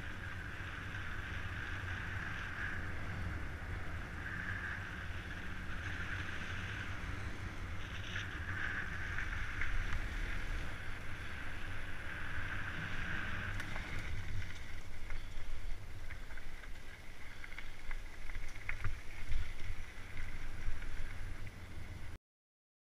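Riding noise of a fat-tyre mountain bike: wind buffeting the camera microphone over a steady rumble and hum from the wide tyres rolling on a paved path, getting louder and more uneven in the second half. The sound cuts off suddenly near the end.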